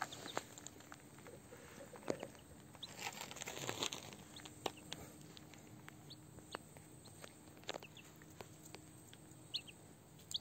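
Muscovy ducklings and a chick giving short, high peeps now and then, among light clicks and rustles of their feet and beaks on gravel, with a louder rustle about three to four seconds in.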